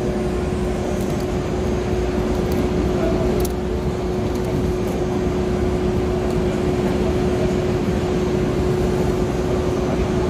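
Steady hum of running machinery holding one constant tone, with a few faint ticks about three and a half seconds in.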